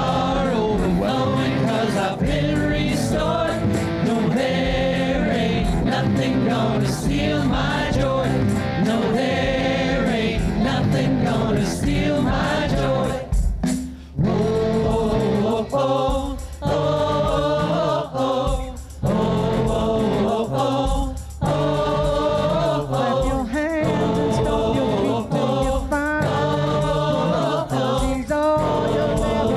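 Small group of singers performing an upbeat gospel song with band accompaniment. The sound briefly drops out about halfway through.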